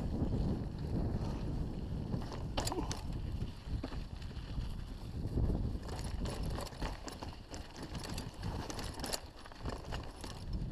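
Mountain bike descending a rough dirt singletrack, heard from a rider-mounted camera: wind noise on the microphone and tyre noise, with sharp clicks and rattles from the bike over stones and ruts, more frequent in the second half.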